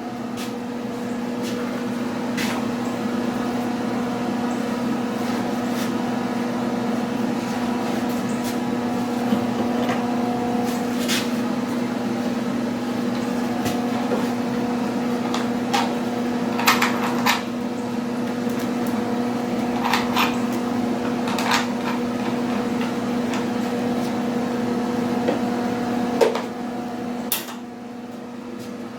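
MIG welder arc running continuously for most of the time, a steady crackling hiss over a constant electrical hum, with scattered sharp pops of spatter; the arc stops shortly before the end.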